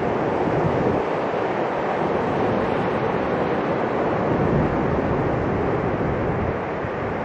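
Ocean surf breaking and washing up a sandy beach, a steady rush of noise, with wind buffeting the microphone in low rumbles.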